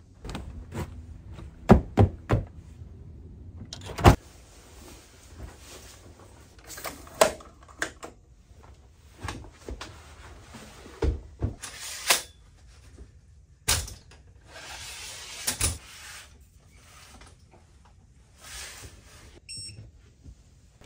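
Irregular knocks, thumps and rustling as camping gear is handled and set down, with a short run of electronic beeps near the end.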